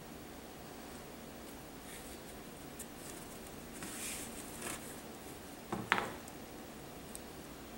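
Stiff card pages of a string-bound art book being lifted and turned, with a few brief rustles, then a soft thump about six seconds in, the loudest sound, as a page or cover is set down.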